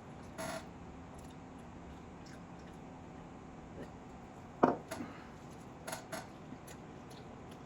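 Eating at a plate of chicken biryani: a few short clinks and taps of tableware. The sharpest comes about four and a half seconds in, over a steady faint background hum.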